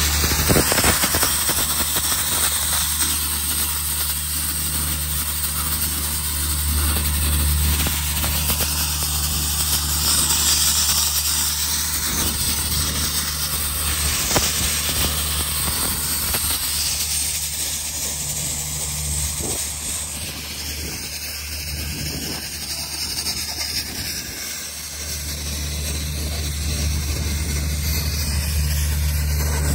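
Sandblasting nozzle blasting compressed air and abrasive at a bundle of rusty steel bars: a loud, steady hiss with a low hum under it, easing briefly about three-quarters of the way through before picking up again.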